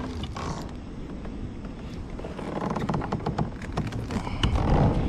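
Low wind rumble on the microphone, with many light clicks and knocks from handling gear in a kayak.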